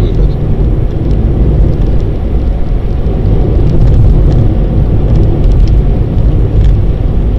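Car driving at road speed heard from inside the cabin: a steady low rumble of tyre and engine noise.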